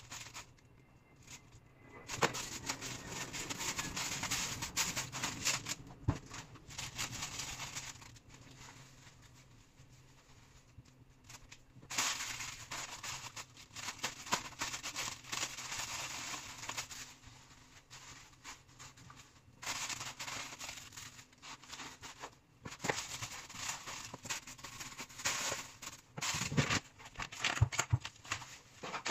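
Plastic bag crinkling and rustling in bursts of several seconds as it is handled, with a few knocks near the end.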